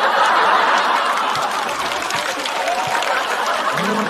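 Studio audience laughing, loudest at the start and holding up for several seconds.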